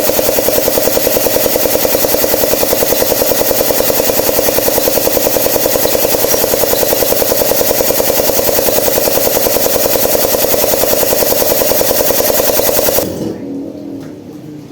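Zacchi air compressor pump running on a test after a piston and reed valve repair, with a loud, rapid, even clatter. It stops abruptly about 13 seconds in, leaving a quieter fading sound.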